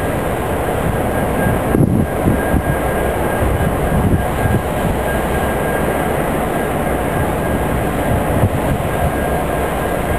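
Diesel locomotive engine running, a steady low rumble with a faint steady high whine over it.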